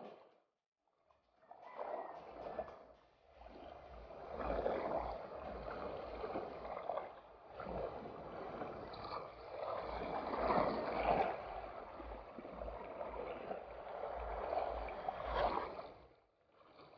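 Water sloshing and lapping close by, swelling and ebbing, with wind gusting on the microphone.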